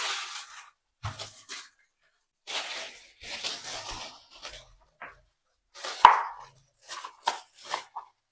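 Short scraping and rubbing noises from mixing two-part silicone rubber in a cup, with a sharper knock about six seconds in and a few light taps near the end.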